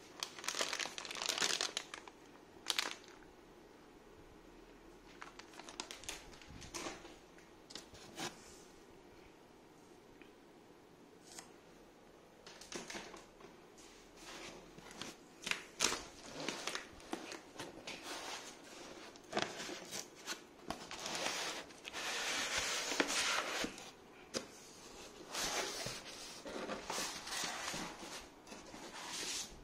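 Packaging being handled: a plastic bag crinkling and white foam packaging blocks rubbing and knocking as they are lifted out of a cardboard box, in irregular bursts of rustling with short knocks.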